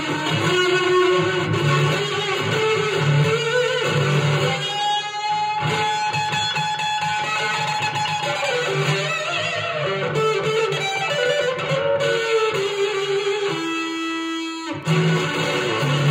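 Stratocaster-type electric guitar played through a germanium-transistor Fuzz Face-style fuzz pedal and a Vox AC10 valve amp. It plays lead phrases with bent notes, and one note is held for about three seconds in the middle.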